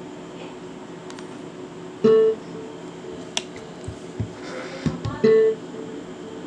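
Guitar-like music: two loud plucked notes, about three seconds apart, each ringing on and fading, with a few faint clicks between them.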